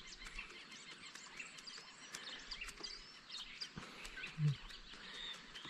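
Faint bird chirps over outdoor background noise, with scattered faint clicks.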